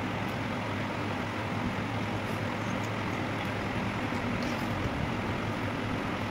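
Steady background noise with a constant low hum, unchanging throughout, with no distinct sound standing out above it.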